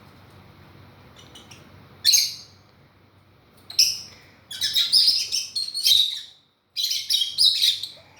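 Pet parrots calling with sharp, high-pitched chirps and squawks: a short call about two seconds in, another near four seconds, then two longer runs of rapid calls.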